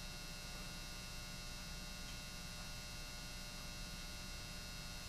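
Steady electrical mains hum with a faint buzz; no handling or tool sounds stand out.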